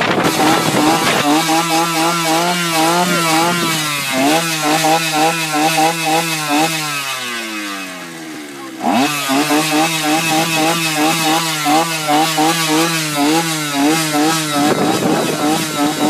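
A small engine running at high revs with a wavering pitch. It winds down about seven seconds in, picks up again with a rising rev about two seconds later, and cuts off near the end.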